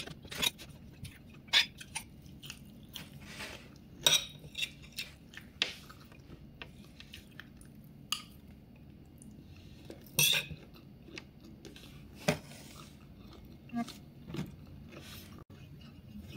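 A fork clinking and scraping against a plate of vegetable salad in irregular sharp clicks, the loudest about 4 and 10 seconds in, with chewing between.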